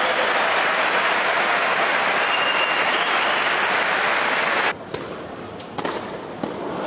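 Tennis stadium crowd applauding and cheering, cut off abruptly about two-thirds of the way through. A quieter stretch follows, with a few sharp hits that sound like a racket striking the ball.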